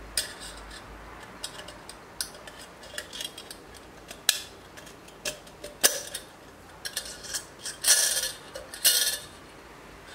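Wire crankshaft and thin tin can clicking, clinking and scraping as the wire is fitted through the holes in the can's side. Scattered light clicks throughout, with two longer scrapes near the end.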